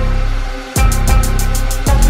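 Regional Mexican band music with no sung words. Sustained notes sit over deep bass hits, and a fast, even high percussion tick starts about a third of the way in.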